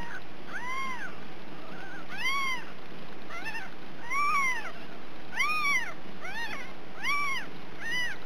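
Newborn Ragdoll kittens mewing: about nine short, high cries, each rising then falling in pitch, roughly one a second over a steady hiss.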